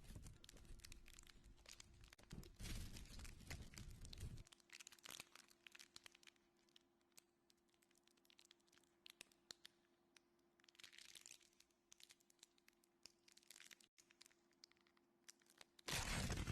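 Near silence with faint scattered crackles and clicks over a steady faint hum; the crackling is denser in the first few seconds.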